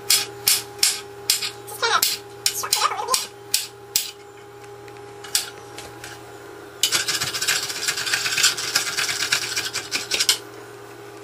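Chef's knife tapping repeatedly on a plastic cutting board as garlic cloves are cut, about two or three cuts a second. About seven seconds in, a few seconds of scraping across the board as the chopped garlic is swept up.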